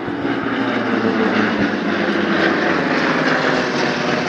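Piston engines of two propeller aircraft flying over in close formation: a loud, steady engine drone that swells in the first second, its pitch sliding down slightly as they pass.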